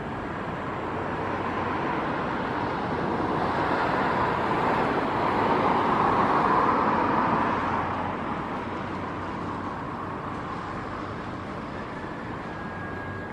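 Jet engine noise from a Boeing 787-8 Dreamliner passing by. It swells to a peak about six seconds in, then fades.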